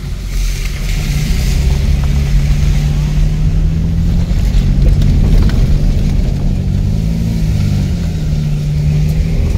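Car engine running at low speed with tyre noise on a wet road, heard from inside the cabin of a Nissan. The engine hum holds a steady pitch, dipping and rising a little near the end, with a hiss of tyres through water in the first couple of seconds.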